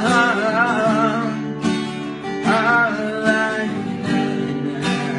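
Song with a voice singing in a wavering pitch over strummed acoustic guitar.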